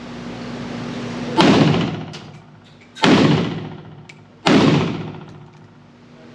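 Three single shots from a Pioneer Arms Hellpup 7.62x39 AK-pattern pistol, about a second and a half apart, each echoing off the walls of an indoor range.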